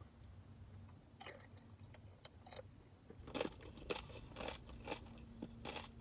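Close-up chewing of crunchy tortilla chips: irregular crisp crunches that start about a second in and come thicker in the second half.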